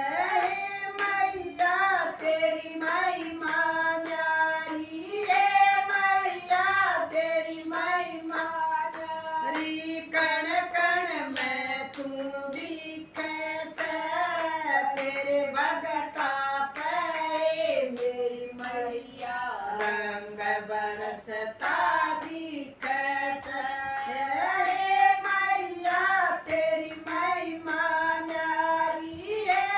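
Women singing a Hindi devotional bhajan to the mother goddess together, with steady hand-clapping keeping the beat.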